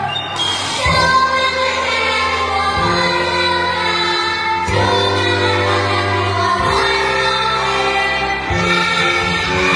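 A group singing a children's song with instrumental accompaniment, held bass notes changing every second or two.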